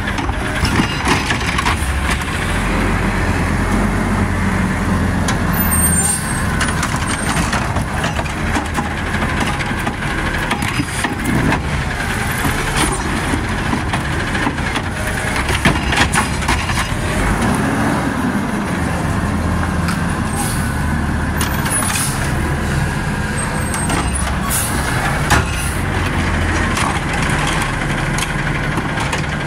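Automated side-loader garbage truck with its engine revving up and down to drive the hydraulic arm, while a plastic wheeled cart is held upside down and emptied into the hopper. Sharp clanks and knocks come from the cart and arm at intervals, and near the end the arm lowers the cart back to the curb.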